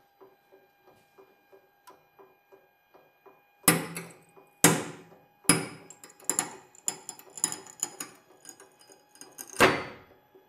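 Carbon fiber plate cracking as a hydraulic press bends it over two supports: three sharp cracks about a second apart, then a run of smaller crackles, then a last loud crack as the plate breaks through.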